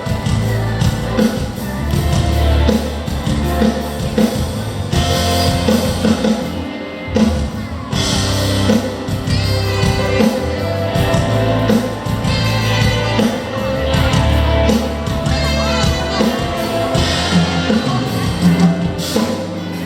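Amplified pop music with a singer over a steady beat and heavy bass, played through a concert sound system in a large hall.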